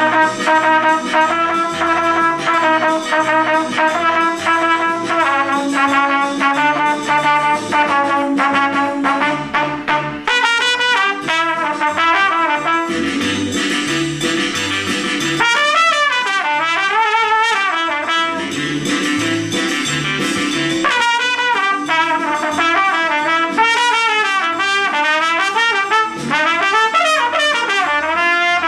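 Trumpet playing a jazzy melody over a recorded backing track with a bass line. The first third is held, steady notes; after that the notes waver and bend in pitch.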